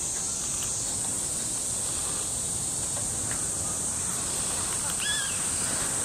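Steady high-pitched insect chorus, with one short arched bird call about five seconds in.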